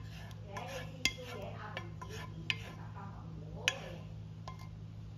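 A pot and utensil scraping thick risotto out into a ceramic bowl, with three sharp clinks of metal against the pot or bowl, over a steady low hum.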